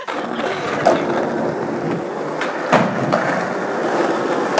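Skateboard wheels rolling over pavement in a steady rumble, with a few sharp clacks of the board, the loudest a little before three seconds in.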